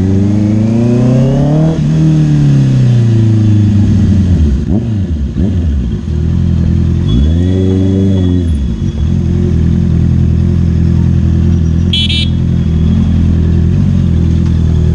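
Honda CBR650 sportbike's inline-four engine under throttle in slow traffic: the revs rise over the first two seconds and fall away, blip up and down again about seven seconds in, then hold steady at low revs. A brief high-pitched beep sounds about twelve seconds in.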